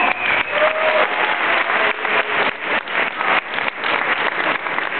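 Audience applauding, with a short cheer about half a second in.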